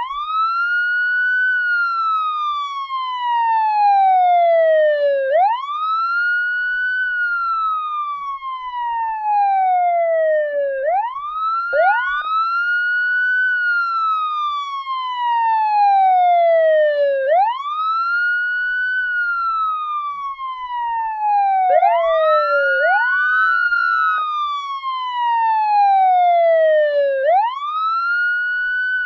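Police siren wailing: each cycle rises quickly in pitch, then falls slowly, repeating about every five and a half seconds. Now and then a new rise starts before the previous fall ends, so two wails overlap briefly.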